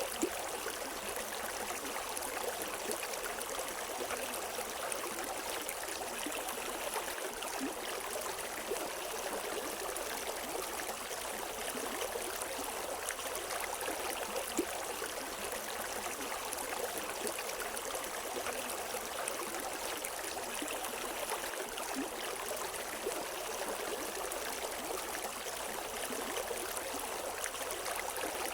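River water flowing steadily over rocks, an even rushing with small splashes and gurgles now and then.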